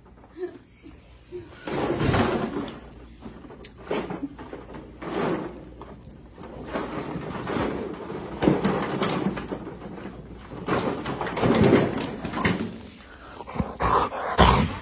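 A dog making odd vocal noises in irregular bursts, about five louder ones a few seconds apart, while it holds onto a toy it won't drop.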